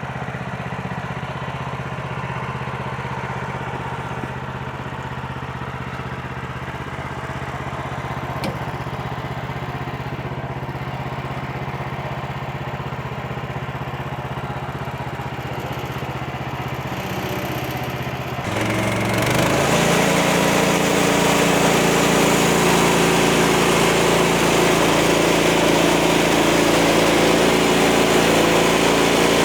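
Portable sawmill's gasoline engine running steadily, then revving up about two-thirds of the way through and holding at the higher speed.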